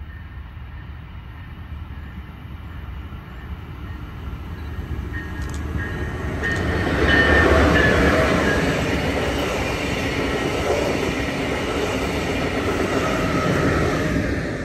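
Brightline passenger train, a Siemens Charger diesel-electric locomotive with its coaches, approaching and passing at speed. It grows louder as it approaches, is loudest about seven to eight seconds in as the locomotive goes by, stays loud while the coaches pass, and fades near the end as the train leaves.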